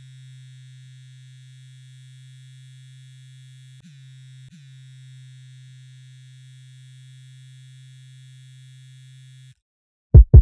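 A quiet, steady, low electronic tone with faint high ringing tones above it, briefly dropping in pitch and restarting twice near the middle, then cutting off; two loud thumps follow at the very end.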